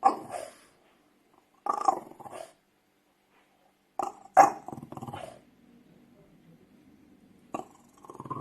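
French bulldog barking: short, fairly high barks in a series of clusters a second or two apart, with a faint low growl in the longer gap before the last barks.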